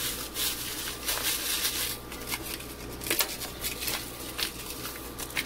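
Paper cheese-powder packet crinkling and rustling in short, irregular bursts as it is shaken and squeezed out over macaroni in a pot.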